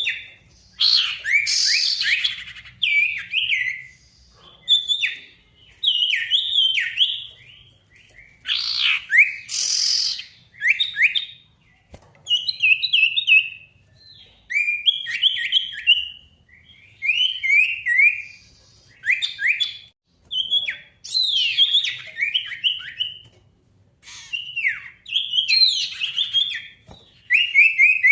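Male sirtu songbird singing in fast, loud bursts: short phrases of quick, falling chirps repeated over and over with brief pauses between them, the rival-calling song used to provoke other birds into singing.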